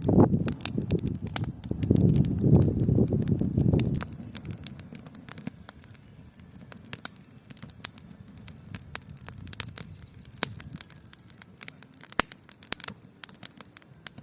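Dry firewood burning in an open campfire, crackling and popping with many sharp, irregular snaps. A low rumble covers the first four seconds, then stops.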